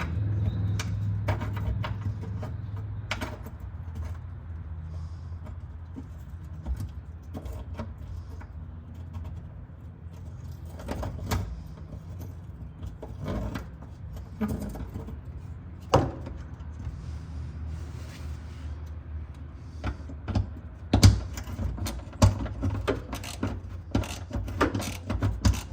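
Scattered metallic clinks, taps and knocks of hand work on a car's parts, irregular and sometimes in quick runs, with a sharper knock about two thirds of the way in, over a low steady hum that fades in the first few seconds.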